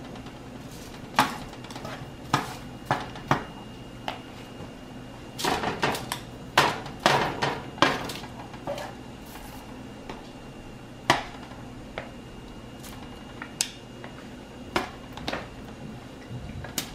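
Kitchen tongs clicking and clattering against a plastic container and a foil-lined sheet pan as raw shrimp are lifted out of marinade and laid down. The clicks are irregular and come in a quick flurry about five to eight seconds in.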